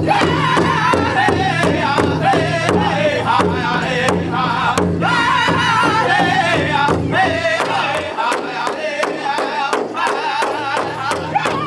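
Powwow drum group singing together while beating a large shared powwow drum in a steady, even beat. The drum's low thud drops away for a couple of seconds near the end while the singing carries on.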